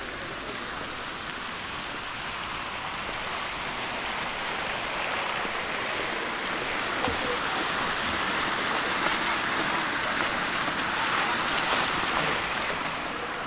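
Water from a fountain's jets splashing into its basin: a steady rushing splash that grows louder, is loudest in the last third and eases off near the end.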